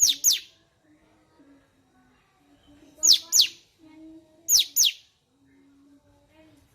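Cucak cungkok bulbul calling: three paired, sharp whistles, each note sweeping quickly downward, near the start, about three seconds in and about a second and a half later. Faint, lower, drawn-out notes sound between the calls.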